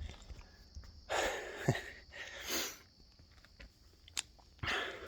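A man breathing hard after a set of kettlebell rows: three heavy, noisy exhales, with a couple of light knocks between them.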